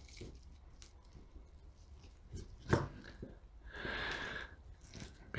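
Faint, wet cutting and handling sounds of a small knife working a raw chicken thigh off the bone on a plastic cutting board, with one sharper click nearly three seconds in and a short scraping hiss around four seconds in.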